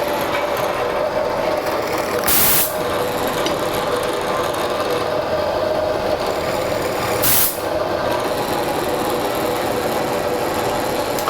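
Compressed-air blow gun clearing wood chips in two short hissing blasts, each about half a second long, over the steady hum of woodworking machinery running.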